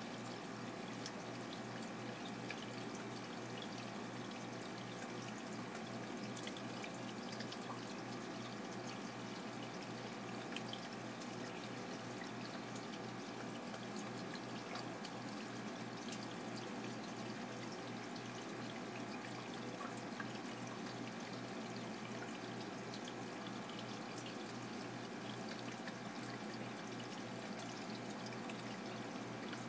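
Water steadily pouring and trickling into an octopus's aquarium tank, with a low steady hum underneath.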